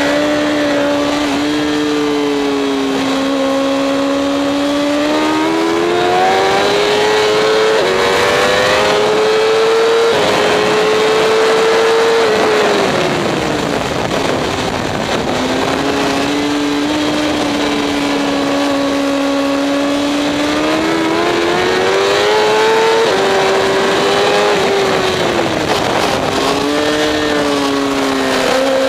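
Honda CBR1000RR's inline-four engine running hard onboard, with wind rush. It holds a steady note through the corners, climbs in pitch as the bike accelerates out, and falls away under braking about halfway through and again near the end.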